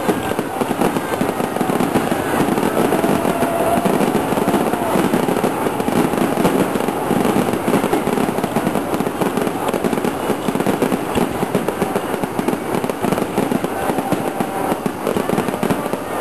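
Aerial fireworks bursting in quick succession: a dense, unbroken run of bangs and crackles.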